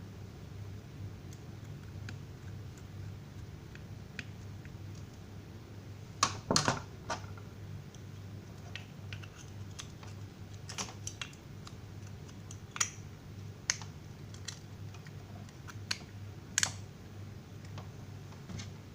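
Scattered light clicks and taps, a quick cluster about six seconds in and single ones after, over a steady low electrical hum.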